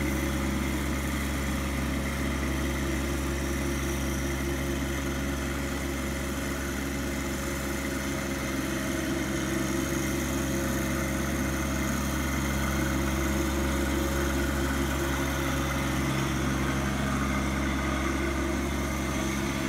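John Deere sub-compact tractor's diesel engine running steadily at low speed as the tractor drives along.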